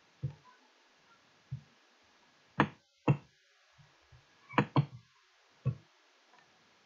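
Computer mouse clicking: about seven short, dull clicks, some in quick pairs, while the PDF eraser tool is used on a line drawn on a graph.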